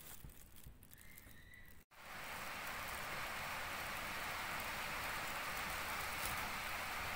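A steady, even hiss like falling rain starts abruptly at a cut about two seconds in, after a moment of faint sound.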